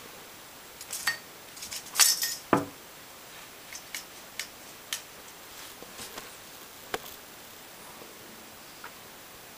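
Scattered light clicks and clinks from a cat playing with small objects around a plastic chair on a tiled floor. The loudest cluster comes about two seconds in, followed by a short squeak falling in pitch.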